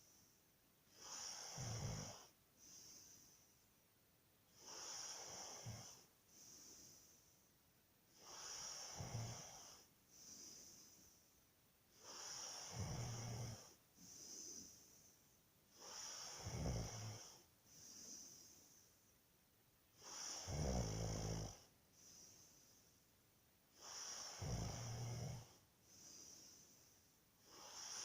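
A person snoring in a steady rhythm, about once every four seconds. Each snore is a low, buzzing breath of about a second, followed by a shorter, softer breath.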